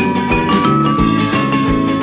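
Background music: a drum beat under held melody notes.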